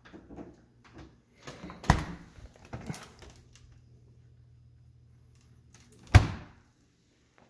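Refrigerator door and pull-out freezer drawer handled by hand: a few knocks and plastic rattles about two and three seconds in, then one loud thud about six seconds in as the freezer drawer is pushed shut.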